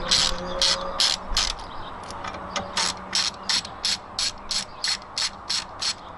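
Socket ratchet clicking as it is worked back and forth to undo the 10 mm battery bracket bolts: an even run of sharp clicks, about three a second.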